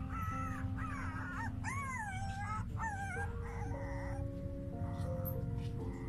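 Puppies whining and yelping in several high, wavering cries, most of them in the first half, over background music with long held notes.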